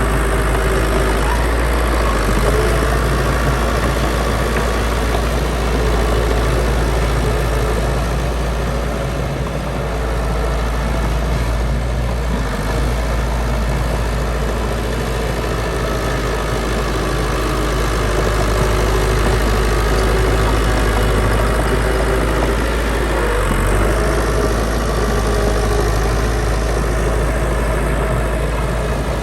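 Diesel engines of heavy earthmoving machinery running steadily, the level rising and falling gently.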